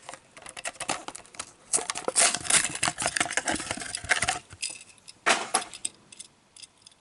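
Plastic blister packaging of a 1:64 die-cast car crinkling and clicking as it is handled, densest from about two to four seconds in, with one more short crackle about five seconds in.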